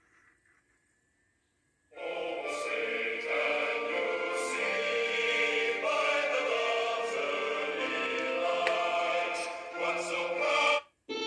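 Choral singing with long held notes from a DVD menu's music, played through TV speakers. It starts abruptly about two seconds in and cuts off suddenly near the end.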